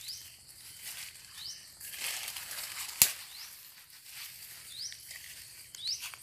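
Footsteps and brushing through dry leaves and undergrowth, with one sharp crack about three seconds in, the loudest sound. Over it a bird repeats a short rising chirp every second or two, against a steady high hiss of insects.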